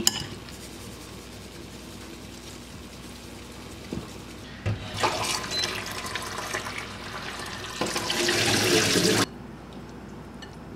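Kitchen tap running into a stainless steel sink as something is rinsed under it, for about four and a half seconds. It grows louder near the end and then cuts off abruptly.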